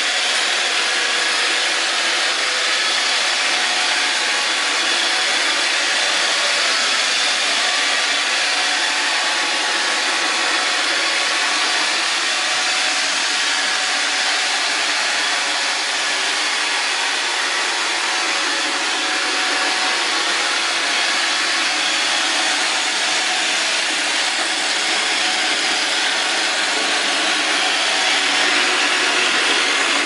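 iRobot Roomba 600-series (Roomba 650) robot vacuum running on a hard wooden floor: a steady, even whir of its suction fan and brush motors, with a few faint steady tones in it.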